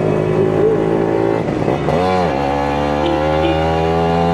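Kawasaki Ninja 150 RR's two-stroke single-cylinder engine running on the road, holding steady revs, with a short rise and fall in revs about two seconds in, then revs climbing slowly.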